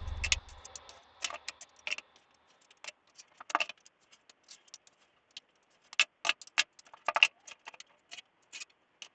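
Irregular light clicks, taps and small rattles, a few close together at times, in a quiet room.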